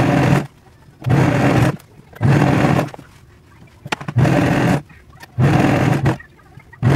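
Serger (overlock sewing machine) running in short bursts of under a second, about six times, with brief pauses between as fabric is fed along the edge being overlocked.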